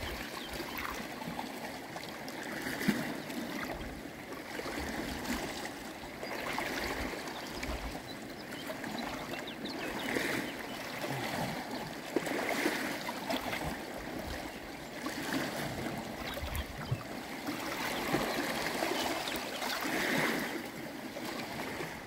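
Shallow water washing and trickling over a flat rock shelf at the shoreline, swelling every two to three seconds as small waves come in, with a few faint ticks.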